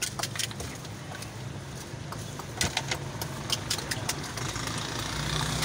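Busy street background with a steady engine hum from passing traffic, broken by scattered sharp clicks and taps. A louder, steady low engine hum builds up near the end.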